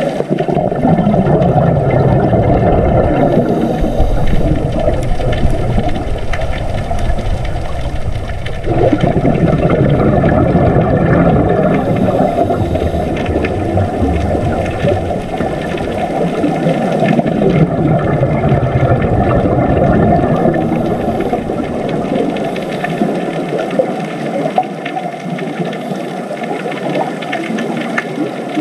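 Underwater-style ambience: a loud, dense low rumbling wash of water noise, with a few slow sliding tones in it.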